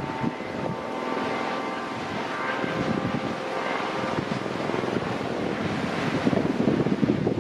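Wind buffeting the microphone, growing gustier toward the end, over a steady engine-like drone of several held tones that fades out about halfway through.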